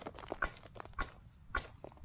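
Beavercraft carving adze chopping into a wooden log to hollow a bowl, a steady run of sharp knocks, about two strikes a second.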